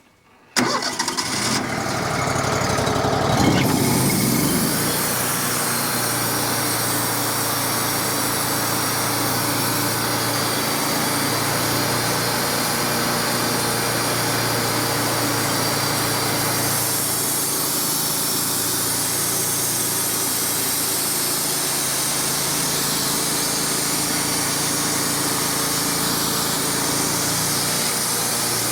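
Wood-Mizer LT35 portable sawmill engine starting suddenly, revving up briefly, then running steadily, ready to cut.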